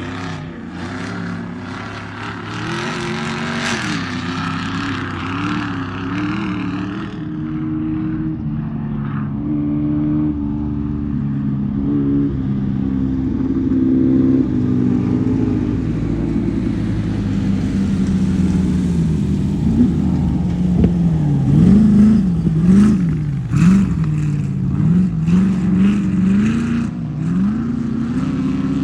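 Off-road race vehicle's engine revving hard, its pitch rising and falling again and again. It grows louder as it comes closer, is loudest about three-quarters of the way through, and swings quickly up and down in pitch near the end.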